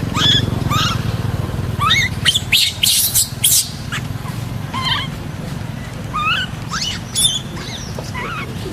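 Short high chirping calls, many of them rising in pitch, repeat throughout over a steady low engine-like hum.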